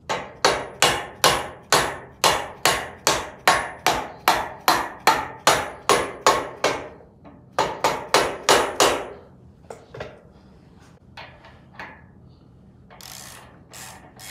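Hammer blows on the lower coilover mount of a Mustang II lower control arm, seating the mounting bolt through the shock's bushing: a steady run of about sixteen sharp metallic strikes, a little over two a second, then a short pause and three more. Lighter clicks and taps follow, with a brief ratcheting near the end.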